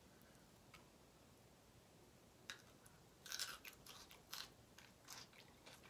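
Grilled onion being bitten and chewed close to the microphone: quiet at first, a click about halfway through, then a couple of seconds of chewing strokes.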